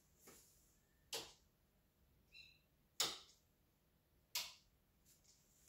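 Three sharp clicks about a second and a half apart, with a fainter one just before them: a wall light switch being flipped.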